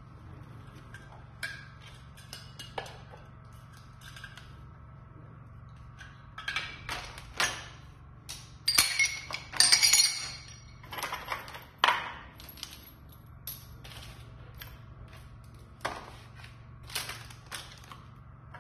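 Metal rods, brackets, cables and small bagged parts being set down one after another on a tile floor: irregular clinks, clicks and clatters, busiest and loudest a little past the middle, over a steady low hum.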